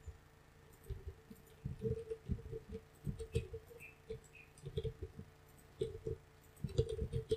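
Computer mouse clicking and being moved on the desk, in irregular soft clicks and knocks, over a faint steady hum.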